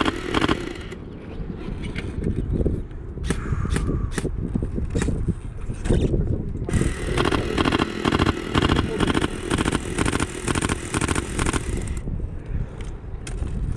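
Footsteps of a player moving on foot across the field, regular thuds and gear rattle about three a second, pausing for a few seconds near the start and resuming for about five seconds, over steady wind rumble on the microphone.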